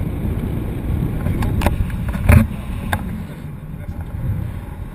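Wind buffeting a camera microphone, a steady low rumble, with a few sharp knocks, the loudest about halfway through.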